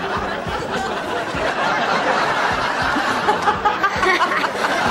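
Studio audience laughing.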